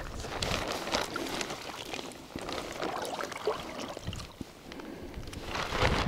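Irregular water splashes and drips as a gill net is hauled up by hand out of shallow sea water, with a louder splash near the end.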